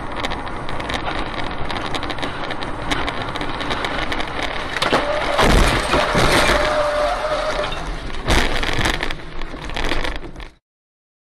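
Car driving noise, with a loud crash about five and a half seconds in, followed by a single steady tone lasting about two seconds. A second sharp bang comes about eight and a half seconds in, and the sound cuts off suddenly near the end.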